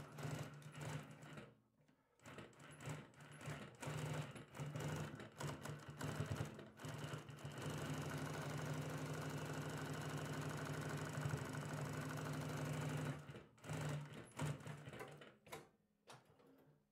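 Typical GC20606-1HL18 industrial high-lift compound-feed walking foot sewing machine stitching through a thick folded denim jeans hem. It sews in short stop-start runs, then in one steady run of about five seconds in the middle, then a few more short runs before stopping near the end.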